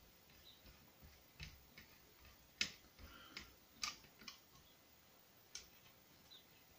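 A few faint, sharp clicks and ticks of a small screwdriver working a screw into 3D-printed plastic gun parts, the loudest about two and a half seconds in; otherwise near silence.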